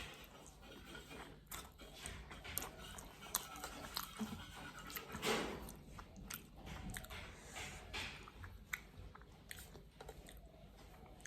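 A person chewing and biting food, with many short crisp crunches and clicks scattered through and one louder, longer noise about halfway through.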